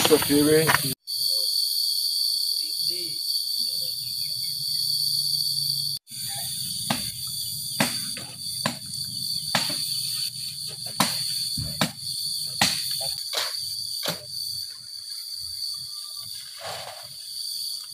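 Steady high chirring of an insect chorus over landslide-clearing work. From about seven seconds in come about ten sharp knocks, roughly one a second, from workers hacking at and shifting fallen trees and debris with hand tools.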